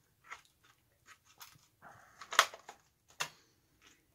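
Irregular light clicks and taps of small parts and hobby tools being handled on a workbench, with a brief soft rustle just before the loudest tap, a little past the middle.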